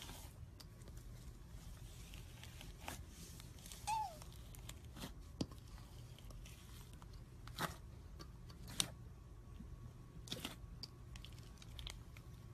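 Slime being handled, giving scattered sticky pops and crackles with a short falling squeak about four seconds in.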